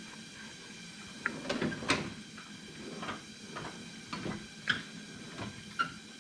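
Scattered light knocks and scrapes as a new spin-on oil filter is turned onto its threads by hand, the canister brushing the engine and nearby parts.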